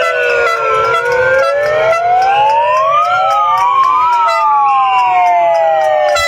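Several sirens wailing together, each sweeping slowly up and down in pitch over a few seconds, out of step with one another, over a scatter of short sharp clicks.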